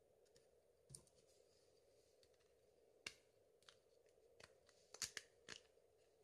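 Near silence with a faint steady hum, broken by scattered small clicks and taps of an opened Samsung Galaxy S3 smartphone being handled and set down on a wooden table, with a quick cluster of sharper taps near the end.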